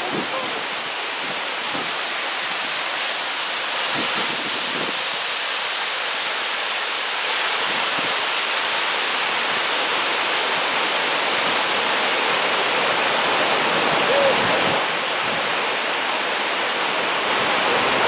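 Water cascading over ornamental fountain walls, a steady rushing splash that grows a little louder about seven seconds in.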